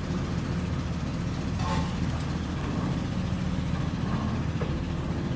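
Heavy engine running steadily with an even, low drone.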